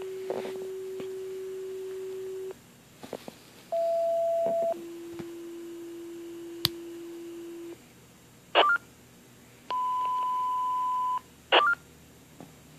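Fire dispatch alert tones from a Baofeng UV-82 handheld scanner's speaker. First a long low steady tone, then a short higher tone followed by a long low tone, like a two-tone sequential page. Later comes a mid-pitched tone of about a second and a half, with short bursts of squelch static and chirps between transmissions.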